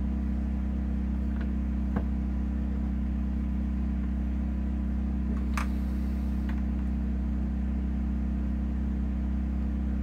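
Steady low hum with a few light clicks and taps.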